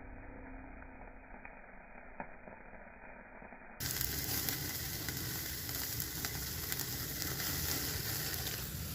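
Chicken sizzling as it cooks, a steady crackling fry with small pops. About four seconds in, the sound turns suddenly louder and brighter.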